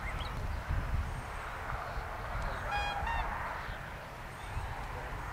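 A single short two-note honk about three seconds in, over a steady low rumble of wind on the microphone.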